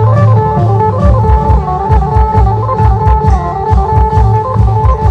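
Isan klong yao long-drum troupe music: a fast, steady drumbeat under a lively, stepping melody line.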